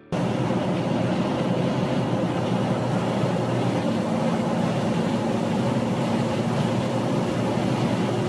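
Steady drone of a vehicle driving on the road, heard from inside the Jeep: an even rumble of engine and tyres with a constant low hum.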